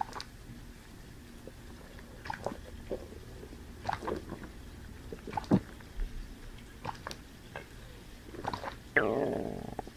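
Person chewing with wet mouth clicks and smacks, then about nine seconds in a loud burp lasting about a second.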